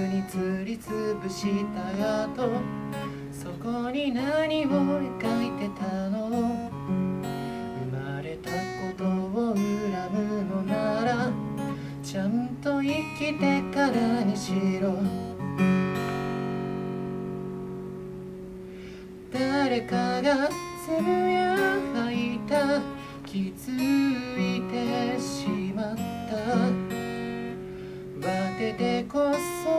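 Steel-string acoustic guitar played solo, picking a melody over strummed chords. About sixteen seconds in, a chord is left ringing and dies away for about three seconds, then the playing starts again.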